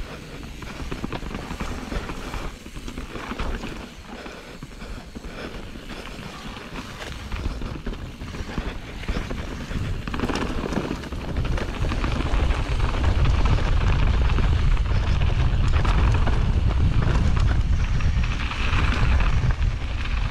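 A mountain bike riding down a trail: rolling and rattling noise with wind rumbling on the microphone, getting louder about halfway through.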